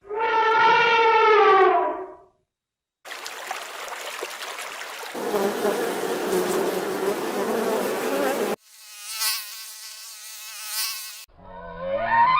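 A string of separate animal clips. First comes a drawn-out pitched call of about two seconds that sinks slightly in pitch. After a short pause comes a long stretch of insect buzzing, then a thinner, wavering insect whine. Another pitched animal call begins near the end.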